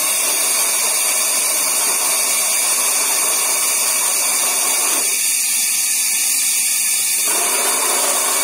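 MK5 rock drill running: a loud, steady hiss with no clear beat. From about five seconds in, its lower, rougher part drops away for about two seconds, then returns.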